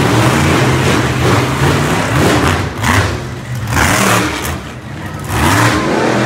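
Monster truck engines revving loud in repeated surges as the trucks drive around a dirt arena, the pitch rising and falling with the throttle.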